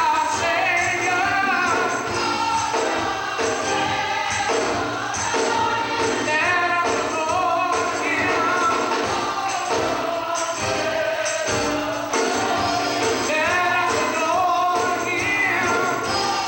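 Gospel choir singing with musical accompaniment during a church service.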